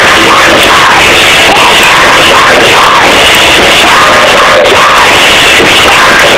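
Live band playing loudly, with double bass, drums and guitar under vocals; the recording is pinned near full level and sounds overloaded and distorted.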